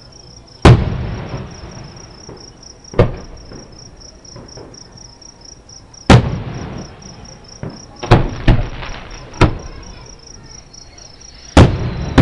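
Fireworks shells bursting about a mile away: about seven booms at uneven intervals, the loudest about a second in and about six seconds in, each trailing off in a rolling echo. Crickets chirp steadily underneath.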